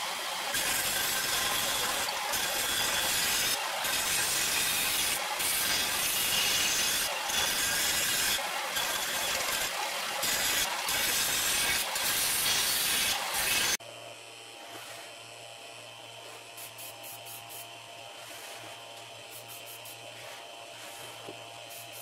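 Workshop tool noise: a harsh, rough hiss of abrasive or rubbing work on metal, surging and easing irregularly, cuts off abruptly about fourteen seconds in to a quieter, steady electric motor hum.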